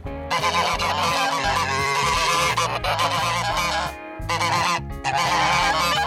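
A group of white domestic geese honking loudly together, many calls overlapping in a continuous clamour with a short break about four seconds in.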